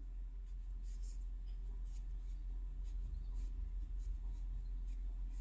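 Two knitting needles clicking and scraping faintly as purl and knit stitches are worked, with light irregular ticks about one or two a second over a low steady hum.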